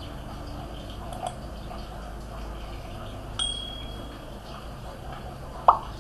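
Subscribe-button animation sound effects over a steady low hum: a short ringing ding about three and a half seconds in, then a sharp click near the end, the loudest sound.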